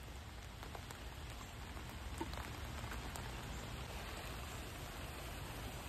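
Steady rain falling, with a few faint taps of single drops.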